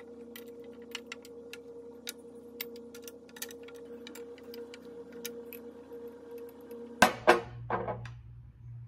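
Flat glass marble gems clicking and clinking against one another and a glass jar as they are handled, many small sharp ticks over a steady hum. A few much louder clinks come about seven seconds in.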